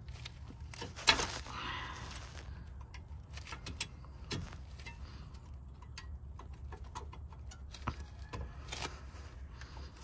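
Metal clicks and scraping as a new front brake pad is slid into the tight new clips of a 2007 Honda Fit's caliper bracket. A sharp click about a second in is the loudest, with a few lighter clicks later.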